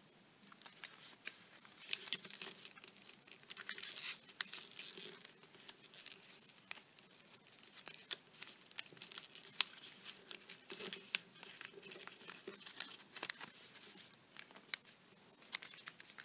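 Origami paper crinkling and crackling as a partly folded crane model is handled and creased by hand: soft, irregular crackles and rustles that begin about half a second in.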